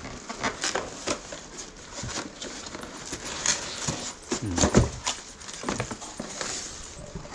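Cardboard box and plastic packaging being handled as a box is unpacked: an irregular run of light taps, clicks and crinkles from cardboard flaps and plastic wrap.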